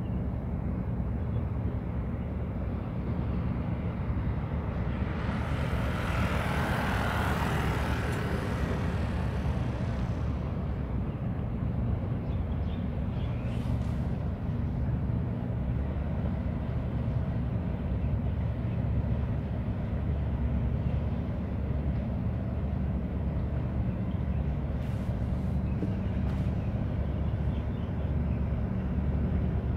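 A steady, low engine rumble. A broad hissing rush swells and fades between about five and ten seconds in, and two brief high hisses come later.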